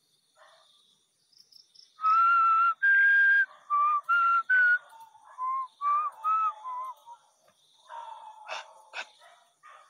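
A person whistling a string of clear notes: two long held notes, then quicker short ones, growing softer after about five seconds in. A few short sharp sounds come near the end.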